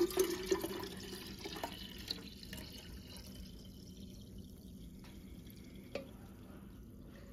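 Tea pouring from a stainless steel saucepan into a glass jar, splashing most in the first couple of seconds and then settling to a quieter stream as the jar fills. A short knock sounds as the pour begins and another about six seconds in.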